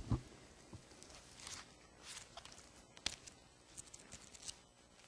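Faint rustling of thin Bible pages being turned, in several short brushes spread across a few seconds. A single knock comes right at the start.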